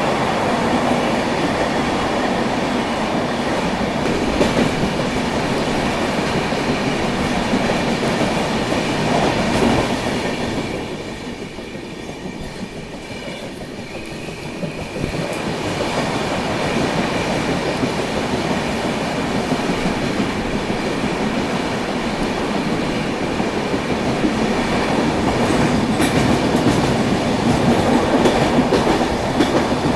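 Passenger train running up a steep grade, heard from an open coach door: wheels rumbling and clattering on the rails, loud and echoing inside tunnels. The noise drops for a few seconds about a third of the way in as the train comes out into the open, then builds again near the end as it enters another tunnel.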